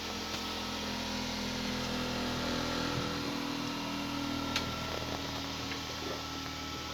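A steady mechanical hum holding several even tones, with a single sharp click about four and a half seconds in.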